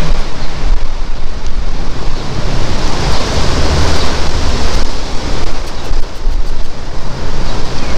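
Wind buffeting the microphone: a loud, gusting rumble and hiss.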